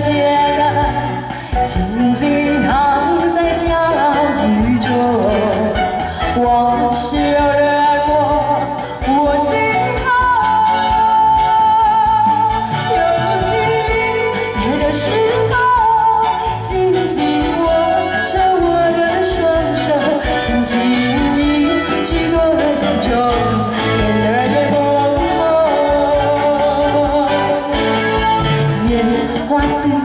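A woman singing a song live into a microphone, backed by a live band with drums and keyboard, all through the stage's loudspeakers.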